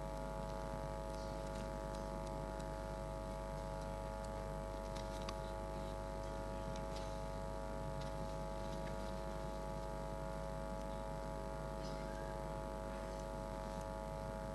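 Steady electrical hum and buzz, a stack of unchanging tones, with a few faint clicks scattered through it.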